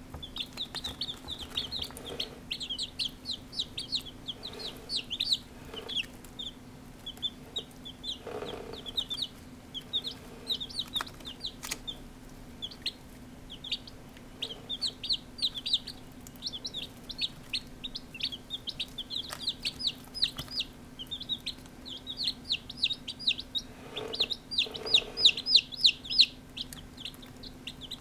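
Day-old chicks peeping continuously, many short high cheeps overlapping, busiest near the end, over a faint steady hum.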